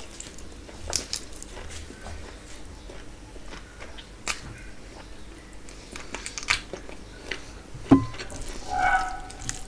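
Close-miked eating sounds: tearing tandoori chicken by hand, then biting and chewing it, with scattered wet mouth clicks and smacks. There is a louder knock about eight seconds in, and a short hum-like pitched sound just after it.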